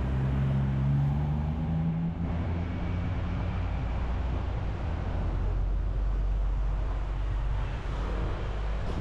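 Road traffic on a city street: a motor vehicle's engine running close by for about the first two seconds, then a steady low rumble.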